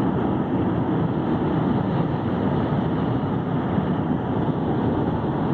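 Steady road and wind noise of a car driving along, heard from inside the car.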